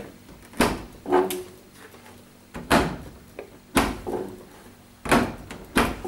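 Tumble dryer door being pushed shut and opened again, its plastic door catch engaging with a series of sharp clunks, about six in all. The latch has just been reset to its open position, so the door now catches and locks as soon as it is shut.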